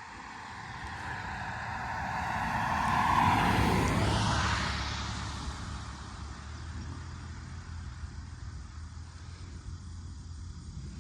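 A vehicle driving past, its tyre and engine noise swelling to a peak about three seconds in, dropping in pitch as it goes by, then fading away, with a steady low hum left behind.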